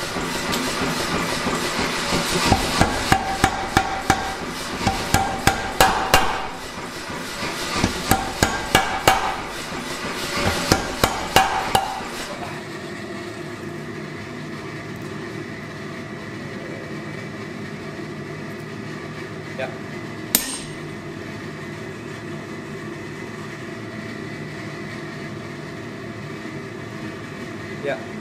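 Power hammer pounding a glowing steel block in several quick runs of blows, stopping about twelve seconds in. After that a steady machine hum continues, with a couple of light metal clinks.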